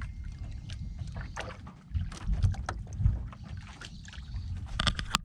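Wind buffeting the microphone and water slapping against the hull and outrigger of a small boat at sea: a low, uneven rumble, with scattered light clicks and knocks that cluster near the end.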